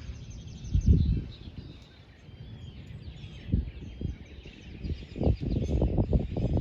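Songbirds chirping and twittering, with low thumps and rumble on the microphone about a second in, again at about three and a half seconds, and building from about five seconds in.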